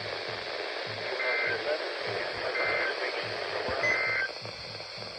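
Weather radio receiver hissing with reception static, with three short, faint beeps about a second and a half apart.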